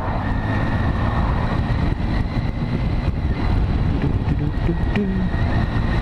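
Triumph motorcycle being ridden at road speed: a steady rush of wind noise over the helmet-mounted microphone with the engine running evenly underneath.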